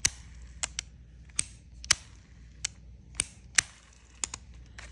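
Jitai baitcasting reel being worked by hand: its handle is cranked and its thumb bar clicked, giving about ten sharp clicks at irregular intervals, with a faint whir of the turning gears in the first two seconds.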